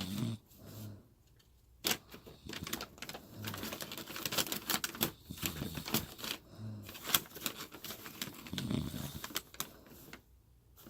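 A sleeping woman snoring, with a short low snore about every three seconds and rapid irregular clicking in between, typewriter-like.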